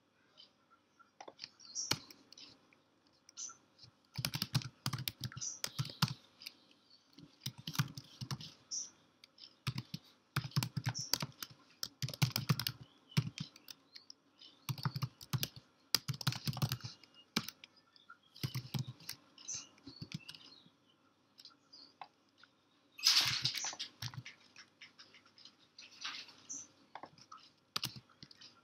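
Typing on a computer keyboard: quick runs of key clicks with short pauses between them, one run about two-thirds of the way through louder and denser than the rest.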